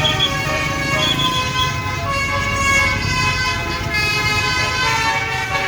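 Bus basuri telolet horn playing a melody of several horn notes one after another, over a low rumble.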